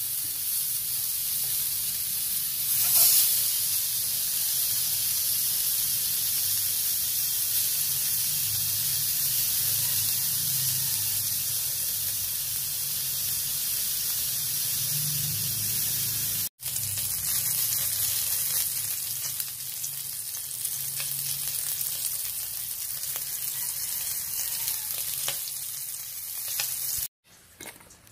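Pork belly slices sizzling on a hot ridged grill pan: a steady frying hiss that breaks off for an instant about halfway through and stops shortly before the end.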